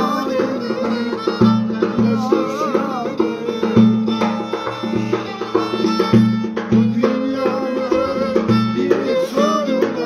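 Violin bowing a Turkish folk dance tune over a hand drum beating a steady rhythm.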